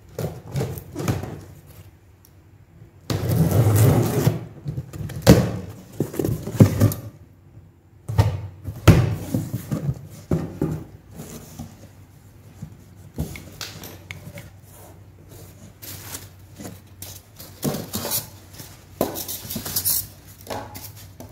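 A new stove being unboxed by hand: cardboard box and packing rustling and scraping, with repeated knocks and clatter as the box and the stove's parts are handled.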